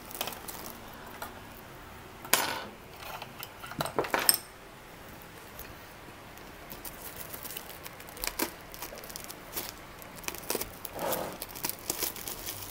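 Plastic courier wrapping on a parcel being picked at and torn open with a pointed tool: rustling and scratching, with two louder scrapes around two and four seconds in, then a run of small clicks and crinkles.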